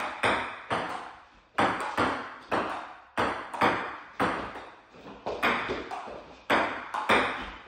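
Table tennis rally: a ping-pong ball clicking sharply off the paddles and table, about two hits a second at an uneven pace, each hit echoing briefly in the room.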